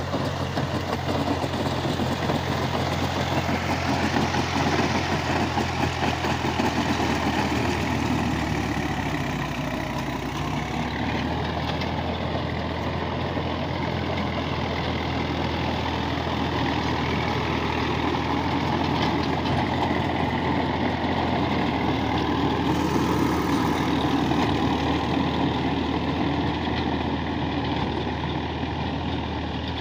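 Massey Ferguson 240 tractor's three-cylinder diesel engine running steadily under load while it drives a rotavator tilling soil.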